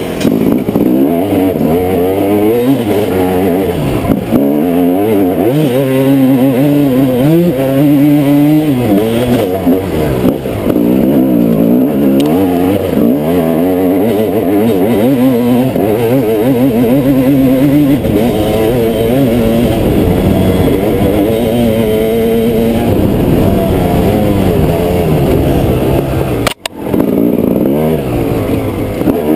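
Dirt bike engine heard up close from the bike itself, revving up and down again and again as the throttle opens and closes through the gears. The sound drops out for a moment near the end.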